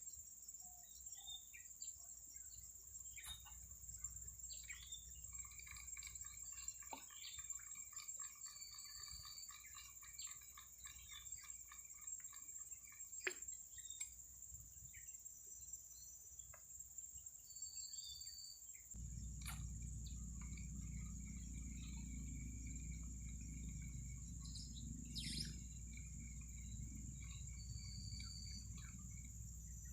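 Faint lakeside ambience: a steady high-pitched insect drone with bird chirps and trills over it, and a few light clicks. About two-thirds of the way through, a low rumble comes in suddenly and carries on to the end.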